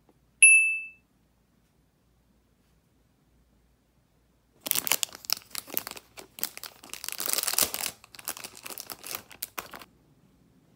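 A single short high beep about half a second in, then, after a few seconds of silence, parcel packaging crinkling and tearing in quick irregular bursts for about five seconds.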